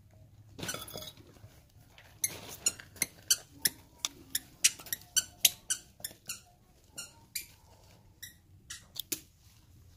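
Steel knife cutting a slab of setting peanut chikki in a glazed clay bowl: a quick series of sharp squeaky scrapes and cracks as the blade presses through and grates on the bowl. The strokes come thick for a few seconds, then a few more near the end.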